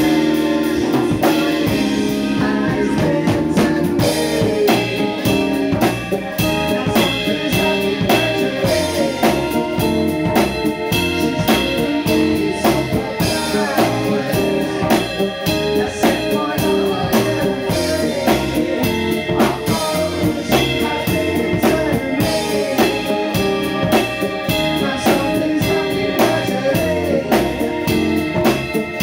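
A live band playing: electric guitar, keyboard and a drum kit keeping a steady beat, with a man singing.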